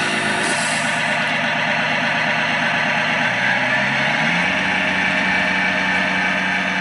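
Diesel truck engine sound of a large radio-controlled model semi-truck running steadily under load as it tows a full-size SUV, its pitch rising a little past three seconds in and then holding.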